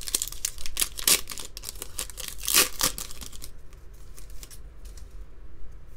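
Foil trading-card pack wrapper being torn open and crinkled by hand: a quick run of sharp crackling rips through the first three seconds or so, loudest about two and a half seconds in, then fainter crinkling as the pack is pulled apart.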